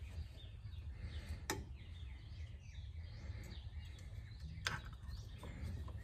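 Two sharp clicks about three seconds apart as a chrome horn cap is worked onto a steering wheel hub, over a low steady hum with faint bird chirps in the background.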